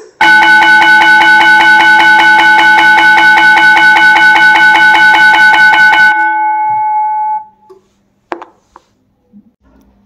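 School bell tone from an automatic bell timer played loud through PA horn speakers: a rapid, even, continuous ringing on fixed pitches, like an electric bell's hammer on a gong, lasting about six seconds. The ringing then fades out over about a second, followed by a couple of faint clicks.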